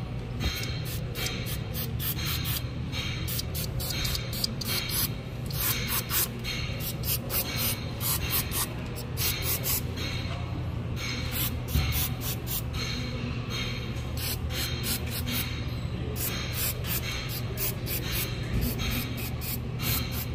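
Aerosol can of CRC Freeze-Off penetrating spray let off in many short hissing squirts onto a rusted brake rotor and hub, soaking the seized rotor to free it from the hub.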